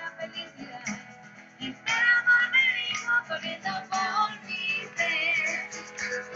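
Music: a song with singing over guitar, louder from about two seconds in.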